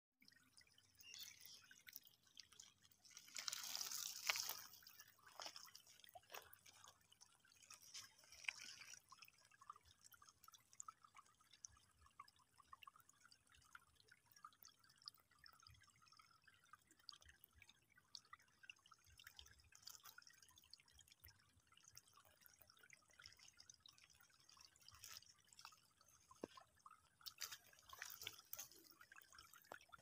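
Faint trickling and dripping of shallow water running over gravel and stones, with a brief louder flurry of water noise about four seconds in and again near the end.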